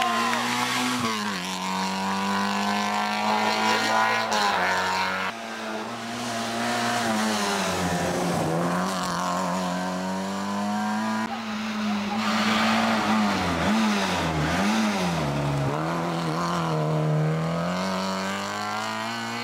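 Peugeot 106 rally car's four-cylinder engine revving hard at high rpm as it passes, the pitch dipping and rising again as the driver lifts and changes gear for the corners.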